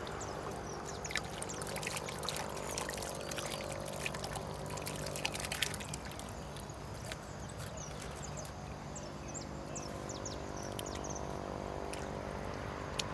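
Water splashing and trickling as bowlfuls of common carp fry and pond water are poured into a water-filled styrofoam cooler. The sharp splashes are densest in the first half, and a steady low hum runs underneath.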